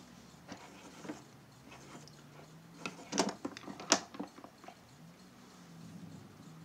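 Small hard objects being handled: a few light ticks, then a quick cluster of sharp clicks and knocks about three to four seconds in, with the loudest two close together.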